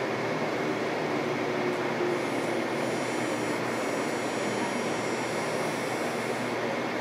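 Steady running noise of a Denver RTD light rail train, heard from inside the car as it moves slowly past a station platform. A faint high whine sits over it through the middle.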